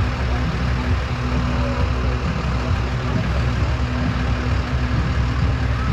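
Large vehicle engine idling, a steady low rumble with a hum that comes and goes.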